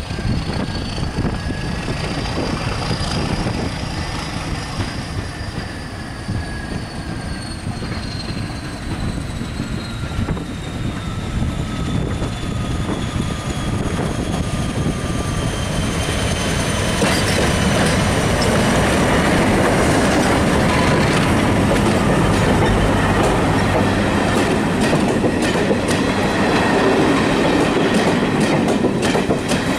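British Rail Class 31 diesel locomotive with its English Electric 12SVT engine, approaching and passing with its train. High whining tones slowly fall in pitch, and the engine grows louder from a little over halfway. Near the end the coaches roll past with a clickety-clack of wheels over rail joints.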